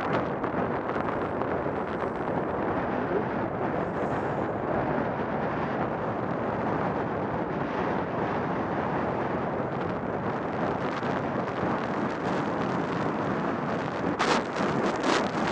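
Wind rushing over the microphone of a camera carried by a skier going downhill, mixed with the hiss of skis running over packed snow. A few sharper scrapes come near the end.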